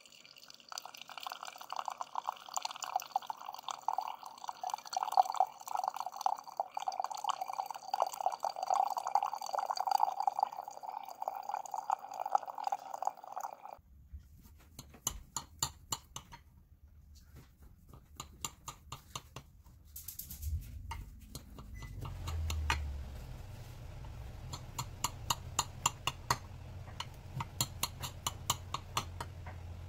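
Coffee maker dispensing a stream of coffee into a ceramic mug, a steady pouring sound that cuts off abruptly about 14 seconds in. Then a knife cutting through brownies in a glass baking dish, with a run of light clicks.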